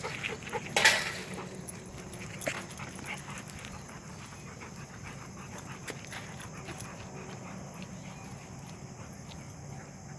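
Dogs at play, with one loud, sharp dog sound about a second in and a few smaller ones just after it, then a steady low background with scattered faint ticks.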